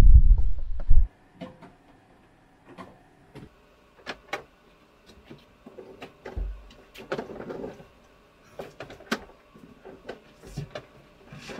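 A loud low rumble of wind on the microphone for about the first second, then cuts off. After that, quiet scattered clicks, taps and rustles of electrical cable being pulled through a cabinet opening, with one low thump partway through.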